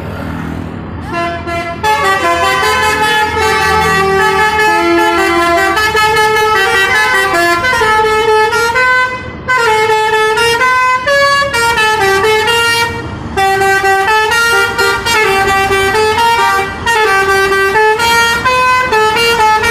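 Bus 'telolet' horns, multi-trumpet musical air horns, playing quick stepped-note tunes over and over, with several notes sounding at once. The horns start about two seconds in and break off briefly a few times.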